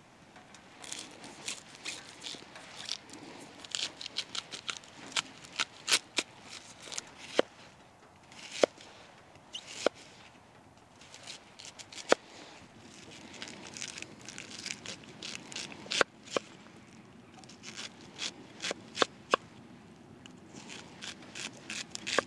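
Bushcraft knife cutting a raw onion on a small wooden board: an irregular string of crisp snicks and taps as the blade goes through the onion and meets the board, some spaced out and others in quick runs.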